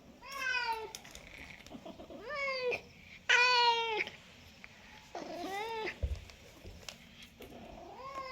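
Domestic cat meowing repeatedly: four separate meows a second or two apart, the third the loudest, and a fifth starting at the very end.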